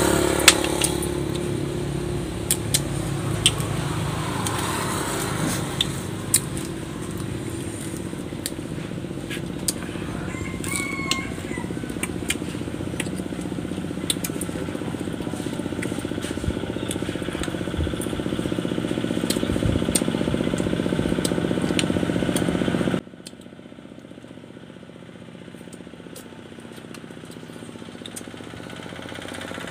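A steady motor hum in the background with scattered small clicks and eating noises as shellfish are picked apart and eaten by hand. The hum drops off abruptly about three-quarters of the way through, leaving a fainter hum.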